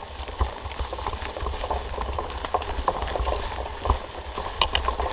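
Mountain bike ridden over a forest singletrack: tyres crackling over twigs and roots, with irregular clicks and knocks from the bike rattling over the bumps and a steady low rumble underneath.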